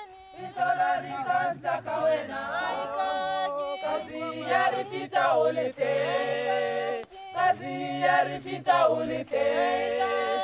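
A cappella choir singing: several voices in harmony, in phrases with short breaks between them.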